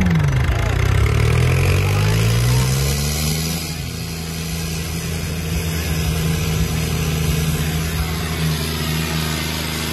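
Two tractor diesel engines, a John Deere 5050 D and a New Holland 3630, running hard under full load while pulling against each other in a tug-of-war. Their note climbs over the first few seconds, then holds steady.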